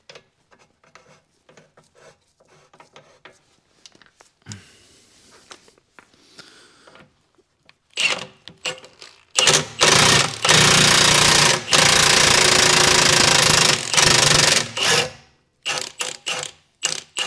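Impact wrench hammering in several long bursts as it drives the nut of a bushing removal tool, pulling a worn rear suspension bushing out of its arm. Faint tool clicks come before the bursts.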